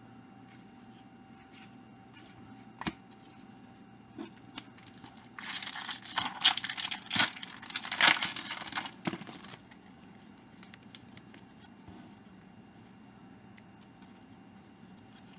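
Card pack wrapper being torn open and crinkled, a few seconds of tearing and rustling about midway, with a few light clicks before and after.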